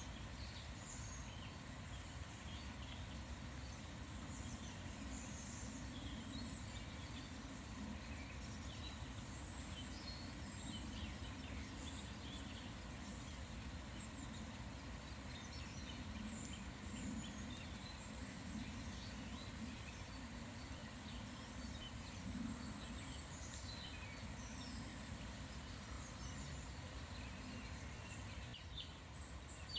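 Small birds chirping and calling on and off, in short high notes, over a steady low background rumble.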